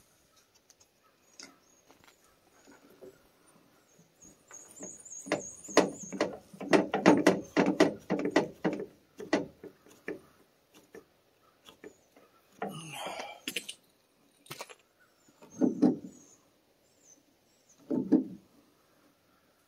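Handling noise from a submersible well pump and its parts on a truck tailgate: a quick run of clicks and knocks, a short scrape, then a few dull knocks near the end as large tongue-and-groove pliers grip a fitting on the pump.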